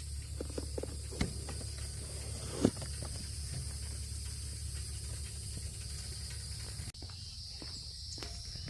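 Outdoor summer ambience dominated by a steady, high-pitched insect buzz. There are a few sharp knocks in the first three seconds. After an abrupt cut about seven seconds in, a series of soft taps follows.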